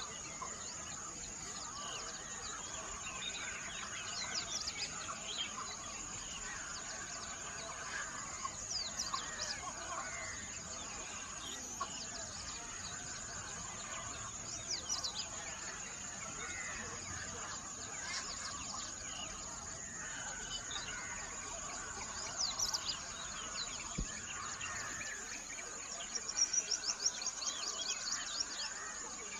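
Several wild birds chirping and singing, short sweeping calls overlapping one another, with a quick run of rapid notes near the end, over a steady high-pitched hiss.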